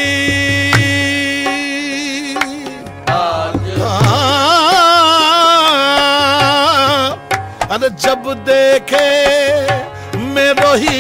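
Qawwali singing by male voices with tabla accompaniment: a long held note, then a wavering, ornamented sung phrase from about four seconds in.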